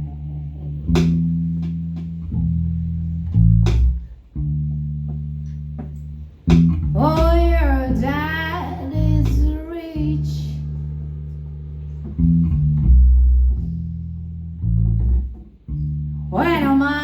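A band playing live: sustained bass and guitar chords change every second or two. A singer's voice with vibrato comes in about six seconds in for a few seconds and returns near the end.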